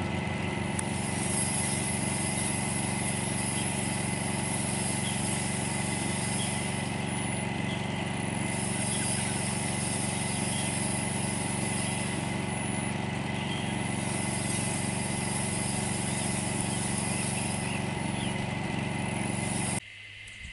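A steady mechanical drone from a running motor, which drops away suddenly near the end.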